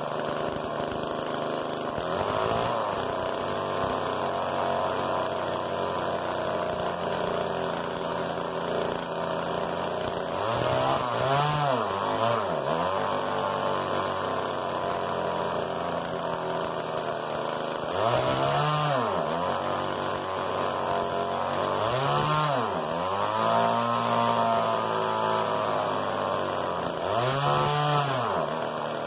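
Homelite XL small two-stroke chainsaw running at idle, blipped up to high revs and let back down to idle several times.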